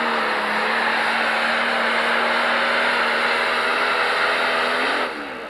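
Pro Stock pulling tractor's turbocharged diesel engine at full throttle under load, dragging the weight sled, holding a steady pitch. About five seconds in, the engine backs off and winds down as the pull ends.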